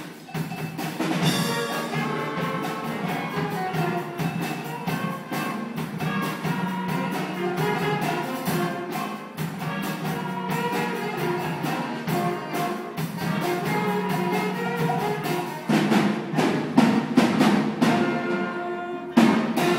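School band playing live: saxophones and other horns over a steady drum beat, with loud accented hits near the end.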